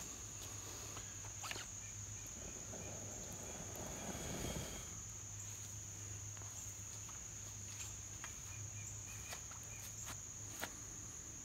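Crickets chirring in a steady high trill, with sharp crackles and pops from a small wood and pine-needle fire burning in a steel fire basket.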